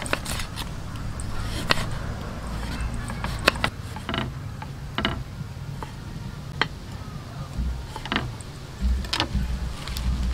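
Irregular sharp knocks and clicks, roughly one a second, of a knife cutting lemongrass and galangal on a wooden chopping board and of the pieces being handled, over a low rumble.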